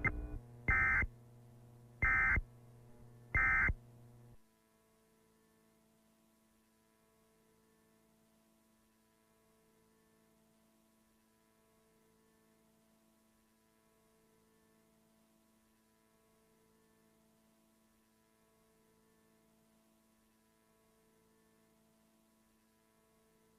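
Emergency Alert System end-of-message code: three short, high buzzing data bursts about a second and a half apart, which close the alert. A low hum stops just after the third burst, leaving only a faint steady hum.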